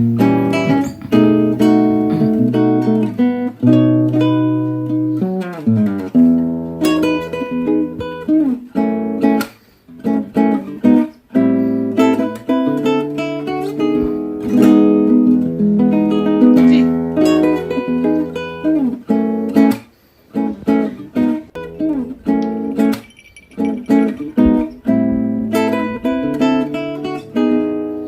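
Background music led by acoustic guitar, with two brief pauses about ten and twenty seconds in.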